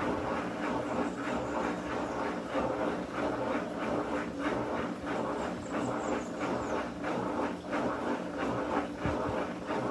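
Electrolux LTD15 top-loading washing machine agitating during the rinse of its bed-and-bath program: a steady motor hum with rhythmic surges of churning water.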